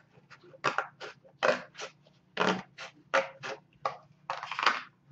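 Scissors snipping through a paper plate, about a dozen short crunchy cuts at an uneven pace of two to three a second.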